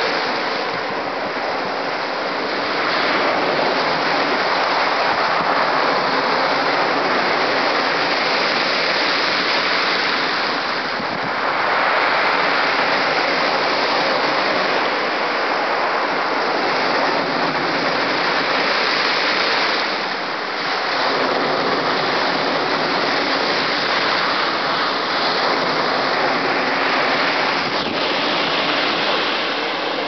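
Rough sea surf breaking and washing up a shingle beach: a loud, continuous rushing that swells with each wave, roughly every nine seconds.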